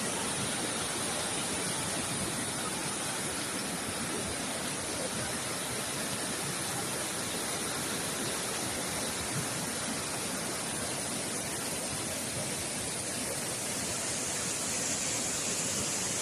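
A strong, fast-flowing river stream rushing steadily.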